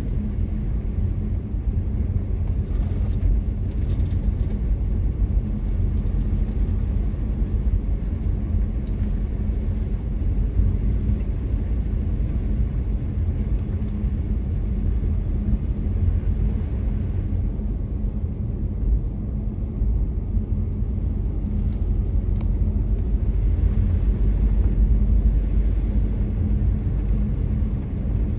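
A car driving on a snowy road: a steady low rumble of tyres and engine.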